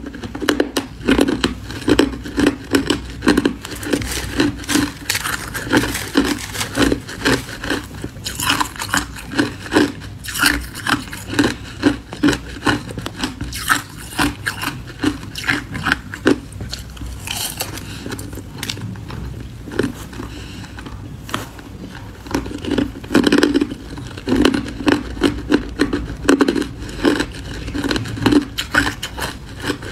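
Crushed ice crunching as it is chewed, in quick runs of sharp crunches, close to the microphone, with a metal spoon scraping and scooping ice in the bowl.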